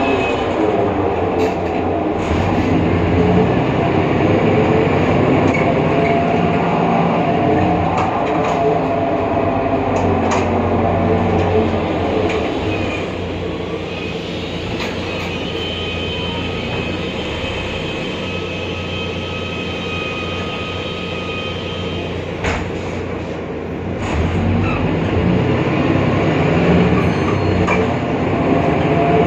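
BredaMenariniBus Avancity Plus city bus in motion, its Deutz diesel and ZF Ecomat automatic driveline heard from on board with whining tones that glide up and down with road speed. The whine is the strange sound that the uploader puts down to a faulty differential. The bus eases off and runs quieter through the middle, with thin high whines holding steady, then picks up again near the end.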